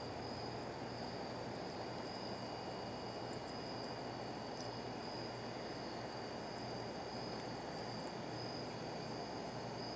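Steady, high-pitched chorus of night insects, unbroken throughout, over a low, even background hiss.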